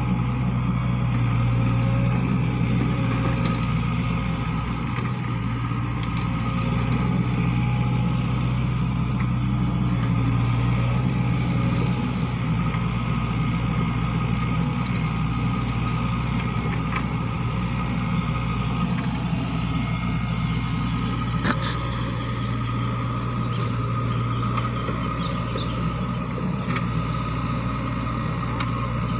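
Sany SY55C mini excavator's diesel engine running steadily as the machine works, with a few short knocks from the bucket and tracks.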